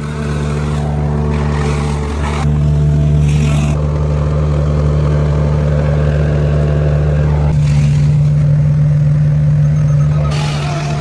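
An engine running steadily with a low, even hum, its sound shifting slightly about two and a half seconds in and again near eight seconds.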